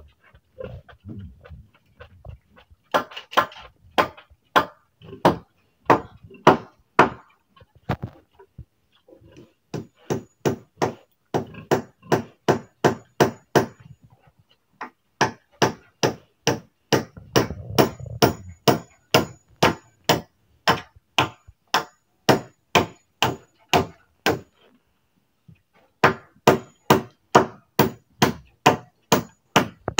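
Hammer blows in long runs of steady, even strikes, about two a second, with short pauses between the runs.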